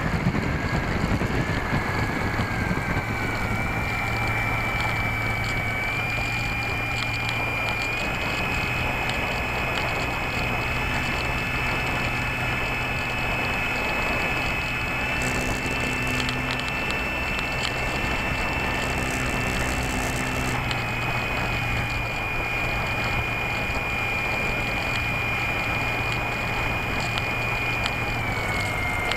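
Electric motor and propeller of a Slow Stick model plane, heard from the keychain camera riding on it: a steady high whine over wind rush. Its pitch steps up several times in the first ten seconds as the throttle is opened, then steps down about two-thirds of the way through and again near the end.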